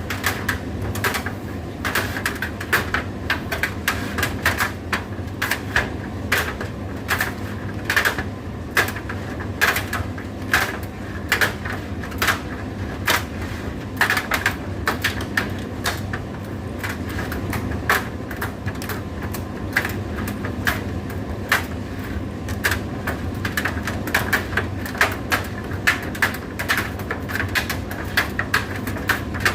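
Indesit IDC8T3 condenser tumble dryer running: a steady motor hum with frequent, irregular sharp clicks and taps over it.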